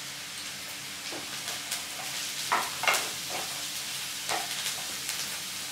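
Chopped capsicum sizzling in oil and butter in a nonstick frying pan, with a wooden spatula scraping and knocking against the pan several times as it is stirred.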